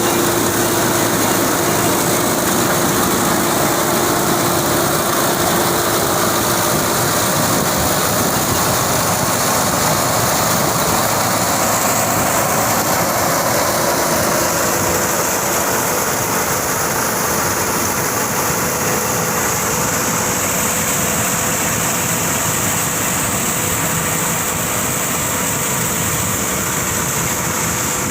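Tractor engine running steadily while it drives a straw chopper machine, a loud continuous mechanical rush with a faint steady hum in it.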